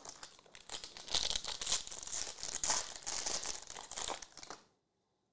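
Silver foil wrapper of a trading-card pack being torn open and peeled off the cards by hand, crinkling and crackling steadily, then stopping near the end.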